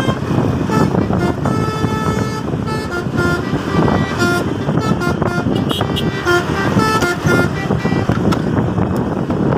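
Telolet bus horn playing a tune in short notes that step up and down in pitch, over steady vehicle and road noise.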